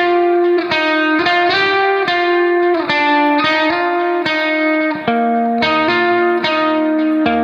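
Background music: a guitar melody of sustained notes, changing pitch about every half second.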